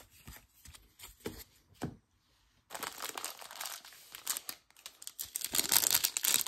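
A foil trading-card pack wrapper crinkling as it is handled and torn open. It starts a few seconds in, after a few light clicks of card handling and a brief pause, and grows louder.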